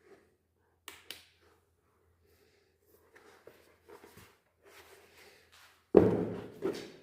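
Two light taps, then soft scuffing handling noises, then a loud thump about six seconds in followed by a smaller knock.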